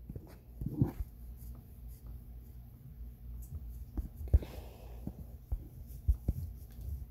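Scattered soft thumps and rubbing from fingers tapping and swiping a smartphone's touchscreen, picked up by the phone's own microphone over a steady low hum, with a short rush of noise about four seconds in.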